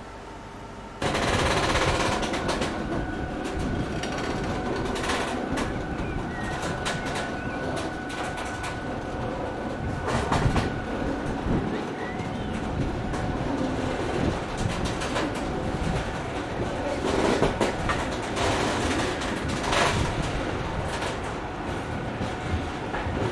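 Freight wagons rolling past slowly, their wheels clattering over rail joints and pointwork with repeated sharp clanks and knocks. The sound starts abruptly about a second in.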